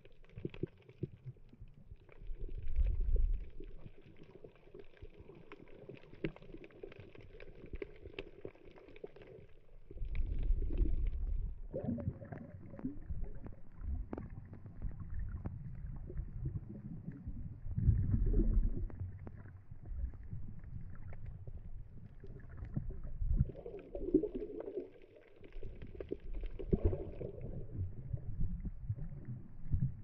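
Underwater sound through a snorkeler's camera housing: muffled low rumbling and sloshing of moving water, with louder surges now and then and a few faint knocks.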